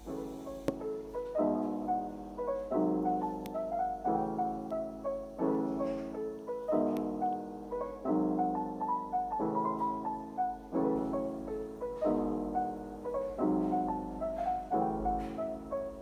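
Background piano music: a gentle, even sequence of chords changing about every second and a half, with a simple melody above them.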